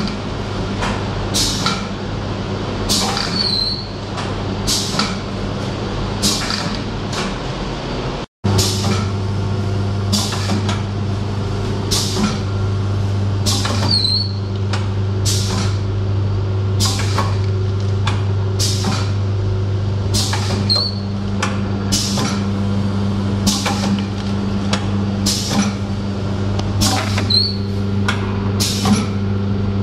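Pneumatic form-fill-seal pouch packing machine running: a steady hum under regular sharp clacks and hisses of air, a little more than once a second, from the pneumatic cylinders that drive the horizontal sealing jaws. The sound drops out for an instant about eight seconds in.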